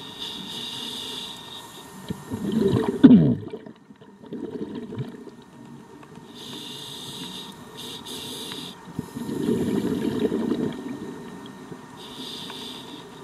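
Scuba diver breathing through a regulator underwater: hissing inhalations alternating with loud rumbling rushes of exhaled bubbles, about two full breaths. The loudest is the bubble burst about three seconds in.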